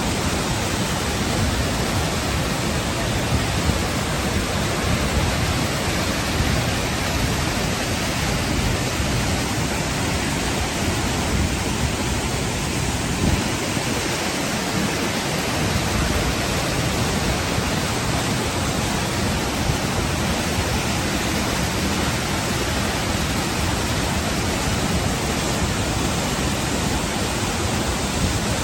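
A waterfall: water pouring with a steady, even rushing noise.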